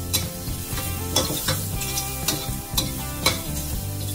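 Metal spatula stirring and scraping mushrooms and carrots around a stainless-steel wok, with repeated sharp clinks against the pan over the sizzle of frying.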